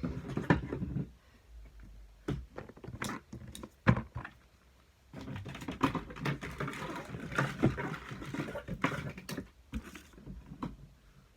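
Small fidget toys and trinkets being handled and put into a container: scattered clicks, light knocks and rustling, with one louder knock about four seconds in.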